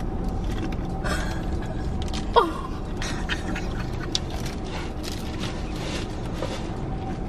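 Fortune cookies being cracked and chewed while their plastic wrappers crinkle: scattered small crunches and crackles over a steady low hum in a car cabin. A short falling vocal sound comes about two and a half seconds in.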